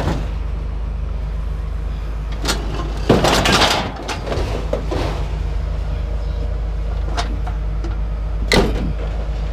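Scrap metal being handled and dropped: a few sharp clanks and a longer rattling clatter about three seconds in, over a steady low engine hum.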